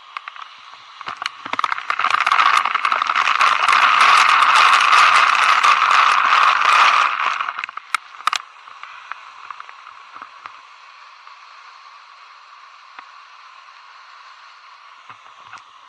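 Waterfall water churning close up, a crackling rush full of splashes and bubbles. It swells about a second and a half in, stays loud for about six seconds, then falls back to a softer steady hiss with scattered clicks.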